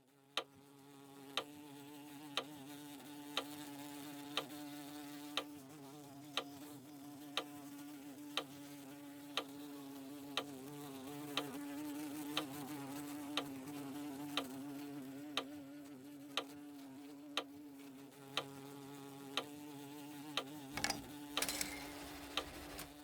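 Cuckoo clock ticking steadily, about once a second, over a steady hum. Near the end a short rush of noise starts.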